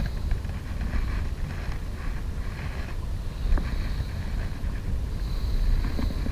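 Wind buffeting an action camera's microphone, a steady low rumble, with a single sharp click about three and a half seconds in.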